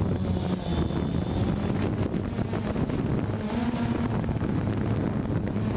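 DJI Phantom 2 quadcopter's motors and propellers running in flight, a steady low hum with a slightly wavering pitch under heavy wind rush on the microphone.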